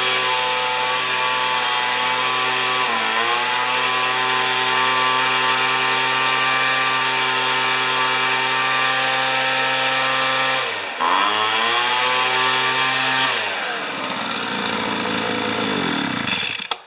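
Weed Eater leaf blower's small two-stroke engine running steadily at full throttle, with two brief dips in speed. It drops to idle near the end and then cuts off.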